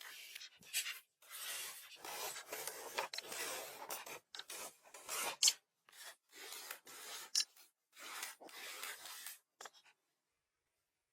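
Rasping, scraping strokes of a hand tool working on wood: about a dozen strokes of uneven length with short pauses, stopping near the end.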